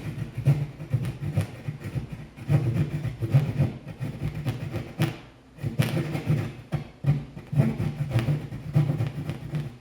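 Drywall being cut by hand with a saw: rough back-and-forth strokes, about two a second, with a short pause around five seconds in.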